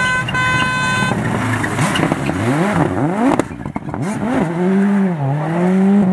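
A horn blast for about the first second, then a rally car's engine revving hard as it accelerates past. The pitch climbs and drops back with each gear change.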